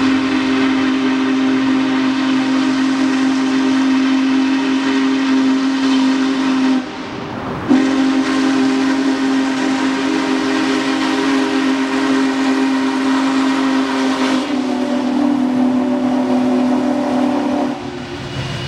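Union Pacific 4014 Big Boy steam locomotive's whistle sounding two long blasts: one of about seven seconds, a brief break, then a second of about ten seconds whose tone shifts slightly about two-thirds of the way through.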